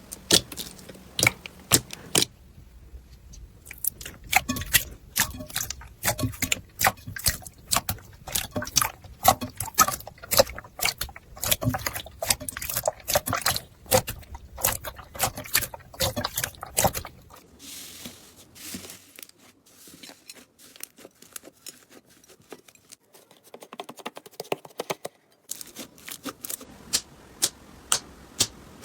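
Slime being squeezed and poked by hand, making rapid sticky clicks and crackling pops, quieter and sparser for a stretch past the middle.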